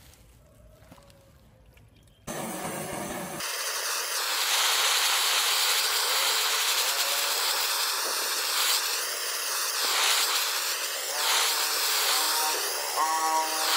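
Handheld butane blow torch flame hissing steadily, starting abruptly about two seconds in.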